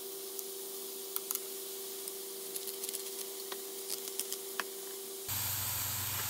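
A steady hum of two close tones under an even hiss, with scattered light clicks and taps. About five seconds in it cuts to a louder, deeper hum.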